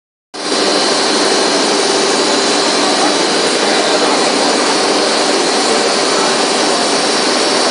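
A CNC drilling machining center running: a loud, steady hiss with a high whine and a lower hum through it, starting abruptly just after the start.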